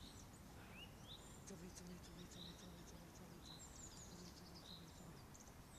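Near-silent outdoor ambience: faint bird chirps and short whistled calls over a steady low rumble of background noise.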